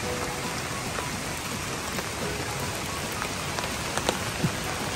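Steady patter of raindrops falling, with scattered sharper drop ticks and a few louder ones about four seconds in.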